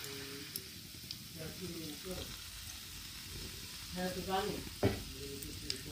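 Pancake batter sizzling as it is poured into hot oil in a wok, a steady frying hiss. Faint voices are heard now and then in the background.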